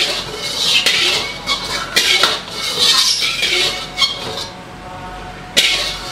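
Metal spatula scraping and clinking against a metal wok under a frying egg, in repeated strokes, with sharp knocks of the spatula on the pan about a second in, at two seconds and near the end.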